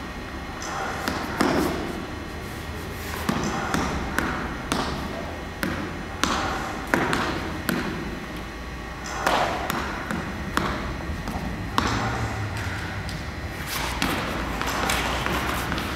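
A dancer's body and shoes knocking and scuffing on a hard stage floor: irregular thumps roughly a second apart, with sliding and shuffling between them.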